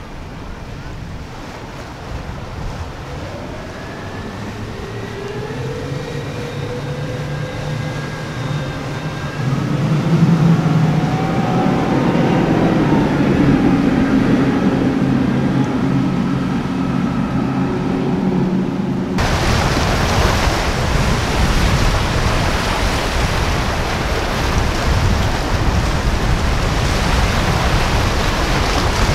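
Quad outboard motors on a center-console boat running, with a few rising tones as they are throttled; the engines get louder about a third of the way in as the boat runs through waves. About two-thirds in the sound switches abruptly to a loud, even rush of wind on the microphone and surf.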